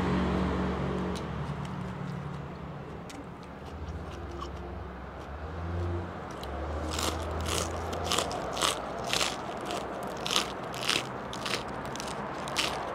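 Crisp fresh lettuce being bitten and chewed close to the microphone. The crunches start about halfway through and come about twice a second, each one sharp and short.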